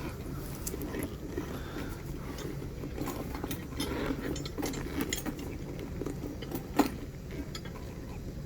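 Straps being pulled through the tool bag's buckles, with small metal fittings clinking in scattered light clicks and one sharper click near the end, over a steady low hum.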